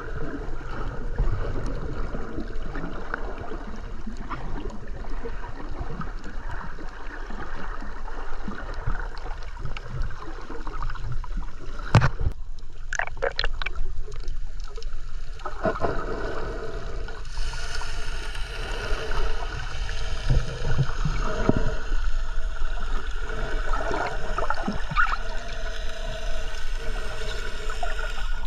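Muffled underwater gurgling and water noise picked up through a GoPro's waterproof housing, with a single sharp knock about halfway through and a brighter, hissier wash of water in the second half.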